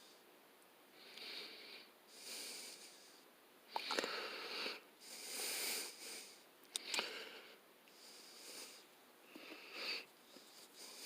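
A man's faint, heavy breathing through the nose, a hissy breath about every second, while he works small wires into a plug, with a couple of sharp little clicks from the handled parts.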